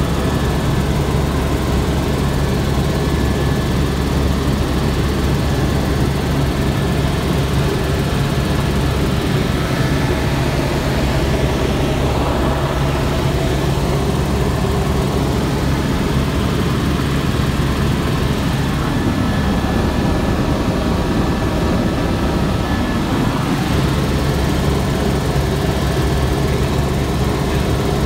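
Cabin noise of a small propeller plane in flight: the engine and propeller drone steadily, heard from inside through the cabin walls, with a brief shift in tone about nineteen seconds in.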